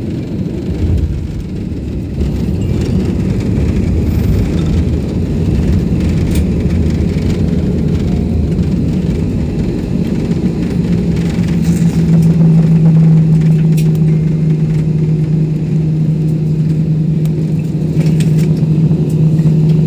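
Airliner cabin noise after landing: a steady low rumble from the engines and the aircraft rolling on the ground, getting somewhat louder. A steady low engine hum comes in about twelve seconds in.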